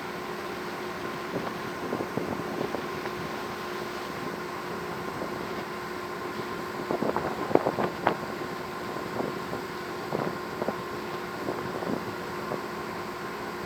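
Steady drone of a cargo ship's engine and machinery heard on board, with a few steady tones in it, and scattered short knocks and clatters, the loudest cluster about halfway through.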